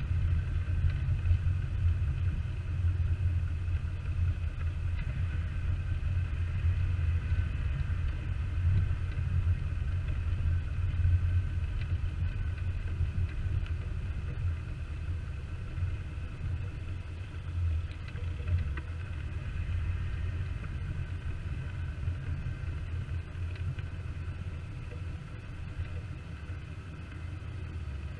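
A Jeep's engine running with a steady low rumble, gradually getting quieter.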